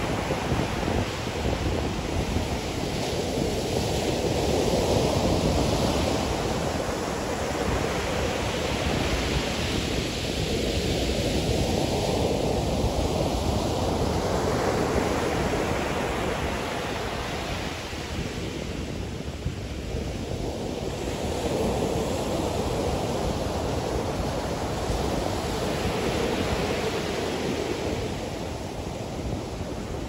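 Ocean surf breaking on a sandy beach: a steady wash that swells every few seconds as each wave breaks and runs up the sand.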